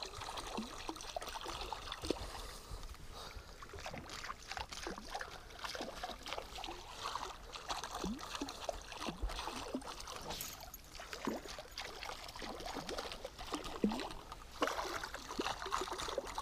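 Light, irregular water plops and gurgles at the surface of calm water, with one sharper click near the end.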